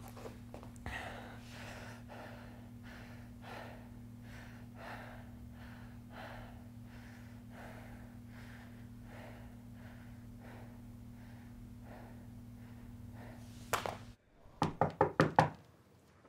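A man breathing heavily in quick, regular breaths over a steady electrical hum. Near the end the hum cuts off and a quick run of about six sharp knocks follows.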